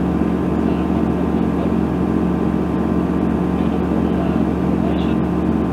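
Cabin noise of a Tecnam P2002 Sierra in cruise flight: the Rotax 912 flat-four engine and propeller drone at a steady, unchanging pitch and level.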